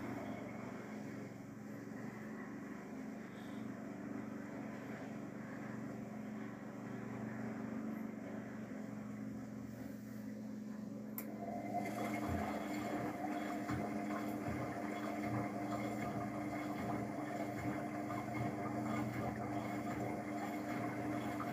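Luxor WM 1042 washing machine running its Cotton 90°C drum-clean cycle, a steady motor hum. About eleven seconds in there is a click, and a higher steady tone joins the hum, slightly louder.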